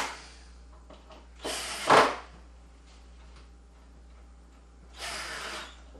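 Two brief scraping sounds, one about a second and a half in and a quieter one near the end, as screws are snugged up to join the wooden pieces of a breadbox.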